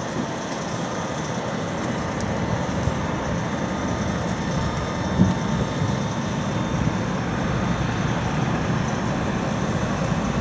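Steady distant rumble of an Airbus A340-300's four CFM56 jet engines as the airliner rolls slowly down the runway after a rejected takeoff.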